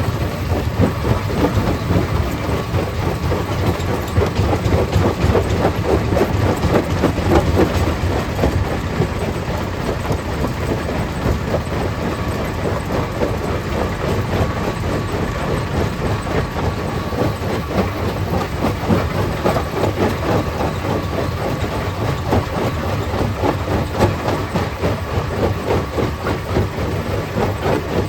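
Stone crusher plant running, with a steady low hum under a continuous, irregular clatter of rock being broken and tumbling through the machine.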